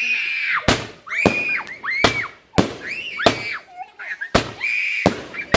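Fireworks going off in quick succession: about eight sharp bangs spaced roughly half a second to a second apart, with short high whistles that rise and fall between them.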